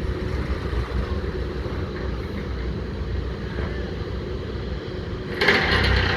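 Heavy construction machinery engine running with a steady low rumble; about five and a half seconds in, a louder, harsher noise starts suddenly and keeps going.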